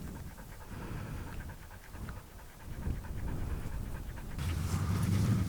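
A dog panting rapidly close to the microphone. A louder low rumble comes in near the end.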